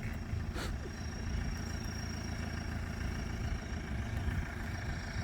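Mahindra jeep's diesel engine idling steadily, a low even rumble, with one short click just under a second in.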